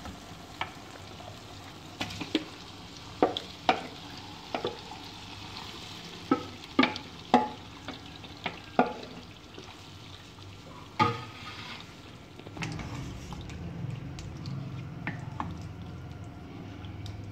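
Yogurt-marinated chicken scraped from a glass bowl into a pot of hot oil and tomatoes, a utensil knocking and clinking many times against the bowl and the pot over a faint sizzle. From about two-thirds of the way in, a steadier, lower sound as the chicken is stirred around the pot.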